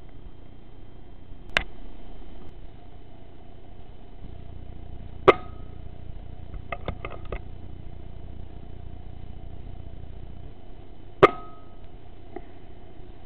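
Three shots from an Air Arms S510 .22 pre-charged air rifle, each a single sharp crack, about one and a half, five and eleven seconds in, the last two followed by a brief ring. Between the second and third shot comes a quick run of light clicks.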